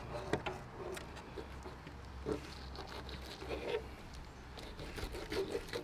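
A knife skinning a fluke (summer flounder) fillet on a plastic cutting board: faint, scattered scrapes and ticks over a low steady hum.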